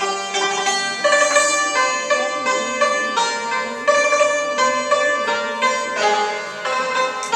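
Santur, a Persian hammered dulcimer, played solo: its metal strings are struck with light mallets in quick runs of notes that ring on and overlap.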